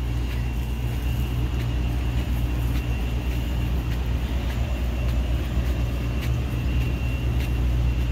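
Steady low outdoor rumble with no clear single source, with faint irregular footsteps on a dirt path and a faint steady high whine.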